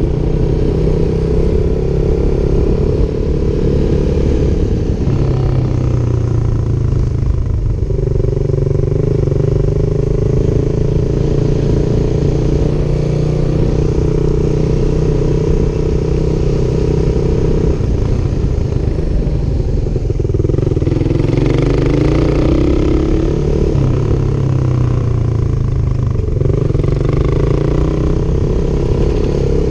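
Motorcycle engine running while riding, heard from a helmet-mounted camera, its note falling and rising again several times as the speed changes.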